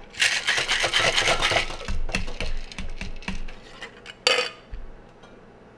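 Ice shaken hard in a cocktail shaker built on a 16-ounce mixing glass, a fast dense rattle for about two seconds that thins to slower rattles. A single sharp knock follows about four seconds in.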